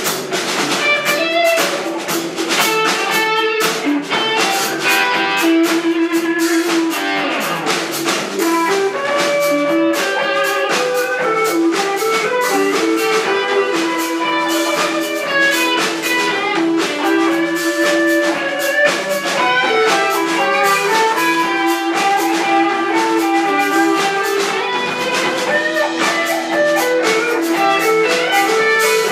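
Live rock band playing: electric guitars trading melodic lines over steady drum kit.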